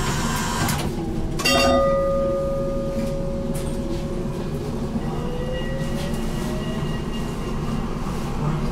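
BN GTL8 tram: a single bell-like ring about a second and a half in, dying away over several seconds, over a steady low rumble. Near the end a faint whine rises in pitch as the tram's drive starts to pull.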